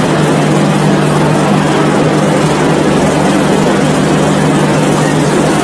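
Passenger train coaches running past close at speed: a loud, steady rushing noise with a steady low hum underneath.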